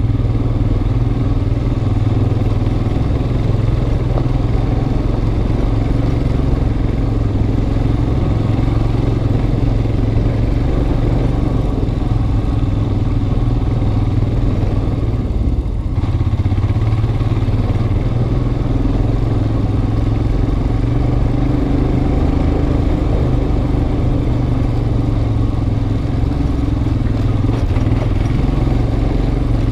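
Motorcycle engine running steadily at low speed, heard close up from the rider's helmet, with a brief dip in the sound about halfway through.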